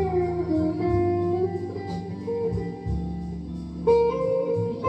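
Telecaster-style electric guitar played lead in a blues style: sustained single notes with string bends, sliding down right at the start and bending up again about four seconds in.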